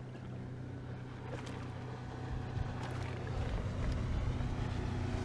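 Boat motor running with a steady low hum, growing louder about three seconds in.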